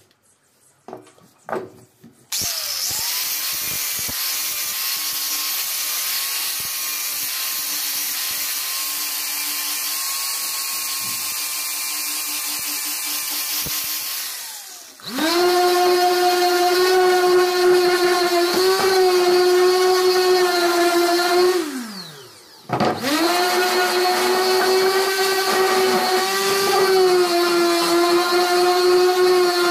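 An angle grinder with a flap disc runs steadily, sanding the wooden blade of a cricket bat. About halfway through, a louder, higher-pitched handheld power tool spins up into a steady whine, winds down, then starts up again.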